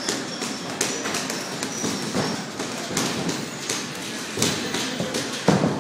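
Boxers sparring in a ring: irregular thuds and taps of gloved punches and footwork on the ring canvas, with one louder thud near the end.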